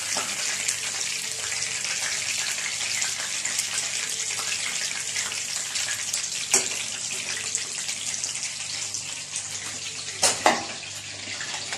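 Pepper chicken pieces deep-frying in hot oil in a kadai, a steady sizzle. A sharp click comes about halfway through and two knocks near the end.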